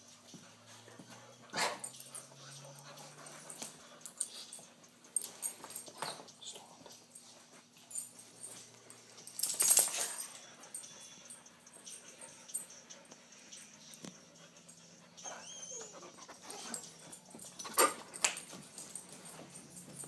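Irregular dry scratching and rasping as a Theraphosa stirmi tarantula rubs its legs over its hairy abdomen, the itch that comes before a molt. The strokes come at uneven intervals, with the loudest about halfway through, over a low steady hum.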